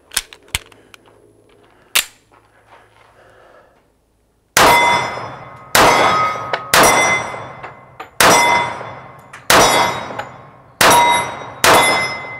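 A few light clicks, then about seven shots from a Springfield Armory Champion Operator .45 ACP pistol, roughly a second apart. Each shot is followed by the ringing clang of steel targets being hit.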